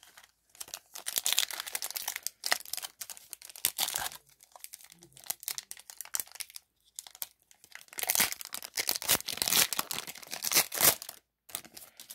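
A trading-card pack wrapper being torn open and crinkled by hand: a stretch of rustling and tearing about half a second in, quieter handling in the middle, then a second long stretch of crinkling about eight seconds in.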